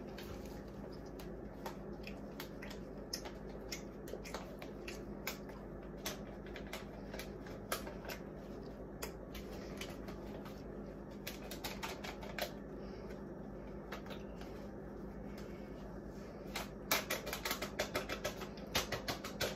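Light, irregular clicks and taps as a small paper packet is shaken and tapped to empty its contents into a pan, growing quicker and denser near the end. A low steady hum runs underneath.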